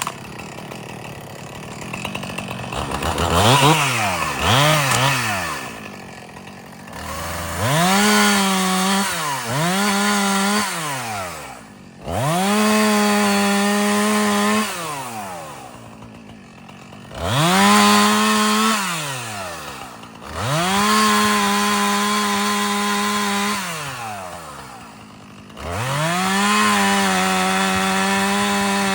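Chainsaw revving up to full throttle about seven times, each run held for one to three seconds before dropping back to idle: cutting branches off a felled tree. The first two revs, a few seconds in, are short blips; the later runs are longer.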